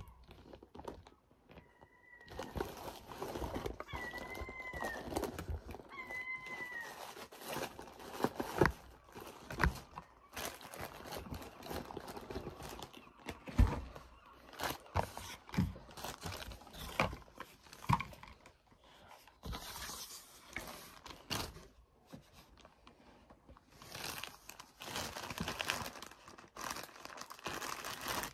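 Plastic packaging rustling and crinkling as it is handled and unwrapped, with scattered knocks of items being picked up and set down. Three short chirps sound about two, four and six seconds in.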